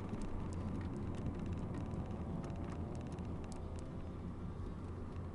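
Steady engine and road noise inside the cabin of a stock Renault Clio RS 197 driving at an even pace, its 2.0-litre four-cylinder humming low, with a few light clicks scattered through.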